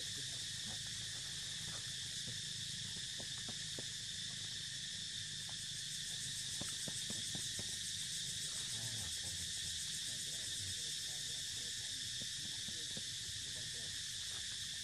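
Steady high-pitched drone of an insect chorus, unbroken throughout, over a low rumble.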